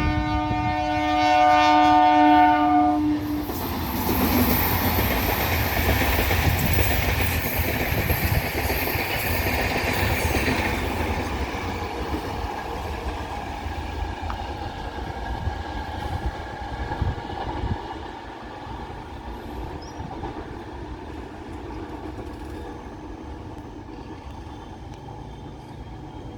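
A MEMU electric multiple-unit train sounds one steady horn note for about the first three seconds. Then comes the loud running noise of the train moving over the rails, which gradually dies away from about ten seconds in as the train recedes.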